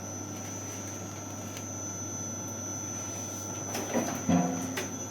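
Electric dough-cutting machine running, a steady hum with a thin high whine, with a few clicks and knocks near the end.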